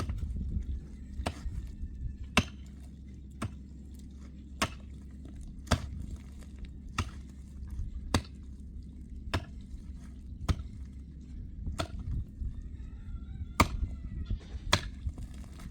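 Regular chopping strikes, about one a second, each a sharp knock, over a steady low rumble.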